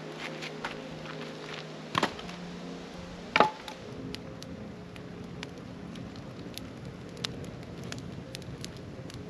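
Wood campfire crackling, with many small sharp pops. There are two louder knocks, about two seconds in and again a second and a half later. Soft background music plays underneath.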